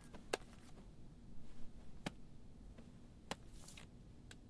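Quiet room with four faint, sharp taps spread out and a brief soft rustle between the last two: light handling of a tablet and papers on a bed.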